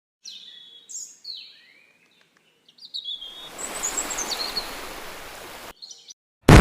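A few bird-like chirps falling in pitch, then a rushing noise that swells and fades for about two and a half seconds, then a sudden loud boom at the very end.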